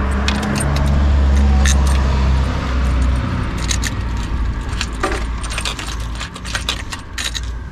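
Light metallic clinks and taps of a steel 8 mm stud extractor socket being fitted against the exhaust manifold studs, scattered irregularly. A low steady rumble underlies the first three seconds, then fades.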